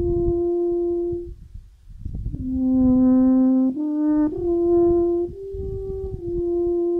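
A brass horn playing a slow melody of long held notes, one note at a time, with a breath pause about one and a half seconds in. A low rumble of wind on the microphone runs under the notes.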